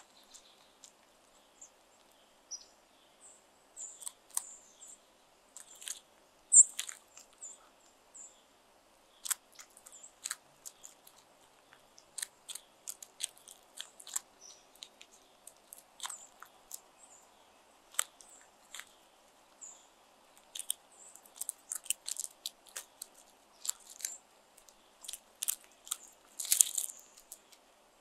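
Crows pecking at food on gravel close to the microphone: irregular sharp taps and crunches as their beaks strike the food and stones, busiest near the end.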